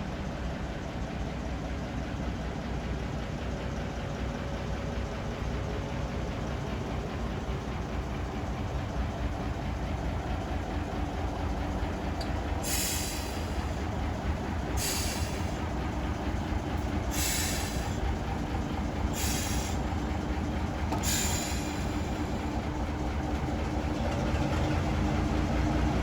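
Heritage railway train running: a steady low rumble, with five short high hissy bursts about two seconds apart midway, and getting a little louder near the end.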